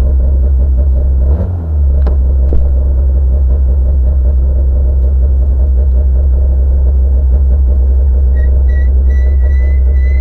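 Citroën C2 R2 rally car's 1.6-litre four-cylinder engine idling with a steady, heavy low rumble, heard inside the stripped cabin, with a brief dip about one and a half seconds in. Near the end a high electronic beep starts, first in short pips and then as a held tone.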